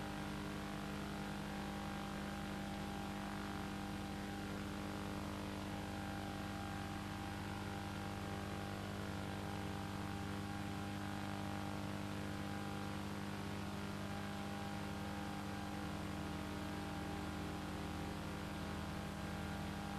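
Steady electrical hum with an even hiss and no other sound: the background noise of an old film's soundtrack transfer.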